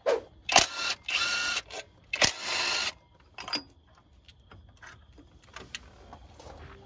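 Cordless power ratchet running in two short bursts of about half a second each, driving in the water pump bolts on a GM 5.3L V8, with sharp clicks around them. Fainter clicks and taps of the tool against the bolts follow.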